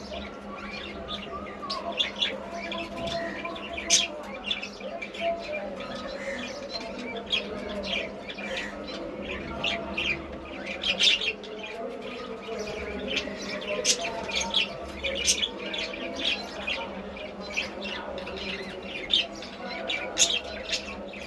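Baby pigeons squeaking: many short, sharp, high chirps and squawks, irregular and close together.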